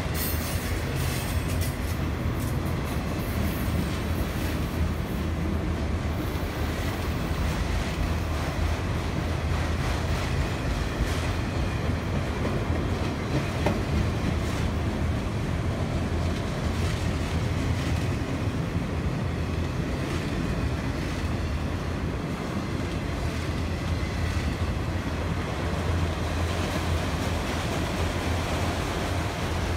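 Freight train of enclosed autorack cars rolling steadily past, a continuous low rumble of steel wheels on the rails with occasional sharp clicks.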